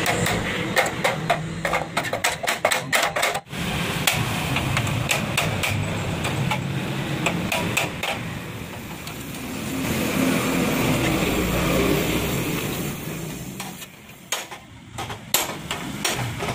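Hammer blows on the steel frame of a Honda EX5 motorcycle, struck at an uneven pace: quick runs of strikes in the first few seconds, sparser ones in the middle and another cluster near the end, over a steady background noise.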